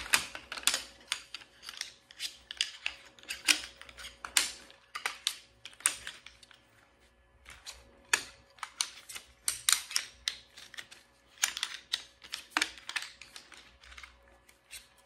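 Tubular poles of a Trekology folding backpacking chair being pulled apart and knocking together as the frame is broken down: a run of irregular sharp clicks and clacks, with a short lull midway.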